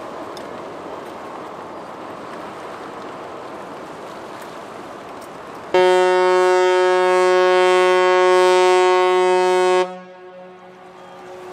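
Ship's whistle of the departing ferry Ogasawara Maru sounding one long blast. It is a loud, steady, deep tone that starts suddenly about six seconds in, lasts about four seconds and cuts off sharply, over a steady rushing background.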